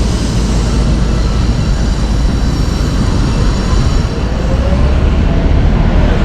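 Train running past, a loud steady rumble of wheels on rails, with a faint rising motor whine partway through.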